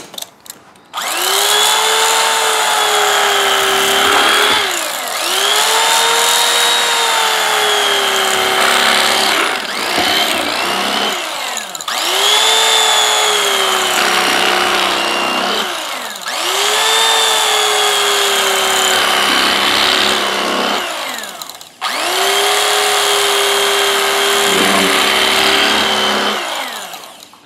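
Electric carving knife running in several bursts of a few seconds each while slicing a beef roast, its motor whine jumping up at each start and sagging as the blades cut, with short pauses between slices.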